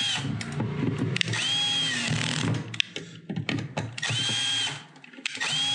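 Cordless screw gun driving terminal screws in several short runs, each spinning up in pitch and then holding for under a second, with brief pauses and clicks between runs.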